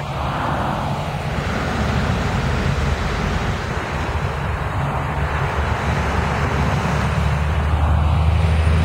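Diesel coach bus engine running as the bus approaches, its low hum getting steadily louder, mixed with tyre noise from cars passing on the road.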